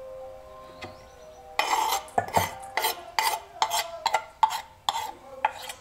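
Kitchen knife scraping and tapping chopped herbs off a bamboo cutting board into a stainless steel mixing bowl. About a second and a half in, a quick run of sharp clinks and scrapes starts, each followed by a brief metallic ring.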